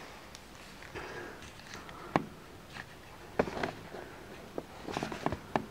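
Scattered light knocks and clicks of objects being handled and set down: one about two seconds in, a couple about three and a half seconds in, and a quick cluster near the end.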